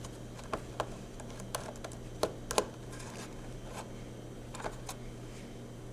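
Scattered small clicks and taps from a screwdriver and tiny Phillips-head screws being taken out of a MacBook Pro's aluminium bottom case and set down, the loudest pair about two and a half seconds in. A steady low hum runs underneath.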